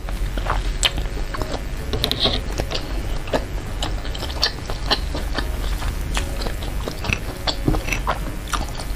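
Close-miked chewing of bakso meatballs in chili broth, with many irregular wet mouth clicks and smacks.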